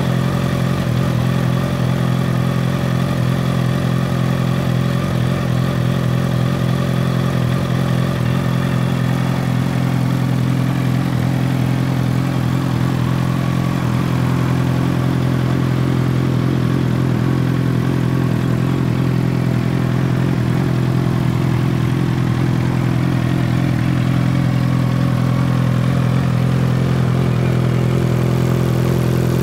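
2022 Suzuki Hayabusa's 1340 cc inline-four engine idling steadily through a full Akrapovic exhaust system.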